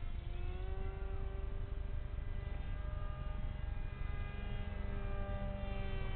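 Electric motor and 6x4 propeller of a radio-controlled park jet whining steadily in flight, the pitch dipping just after the start and shifting a little about four seconds in, over a low rumble.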